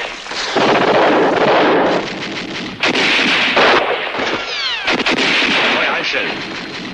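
Dense gunfire: many shots in quick succession, overlapping into near-continuous bursts, with a falling whine about four and a half seconds in.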